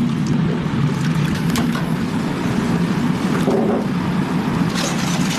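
Steady low machine hum in a restaurant kitchen, with a few light clinks of utensils and a short brighter clatter near the end.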